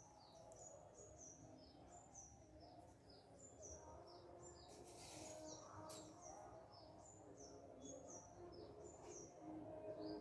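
Faint birds chirping: a steady run of short, high, falling chirps, a few a second, with a brief hiss about five seconds in.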